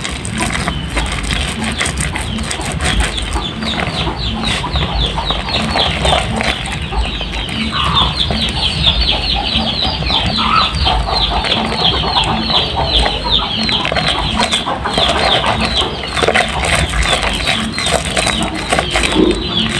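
Soaked, mushy soap being squeezed and lathered by hand, giving a continuous run of rapid wet squelching.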